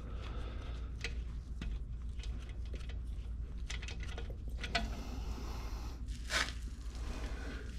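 Scattered light metallic clicks and clinks of tools and small parts being handled during an engine oil drain, with a couple of louder knocks in the second half, over a steady low hum.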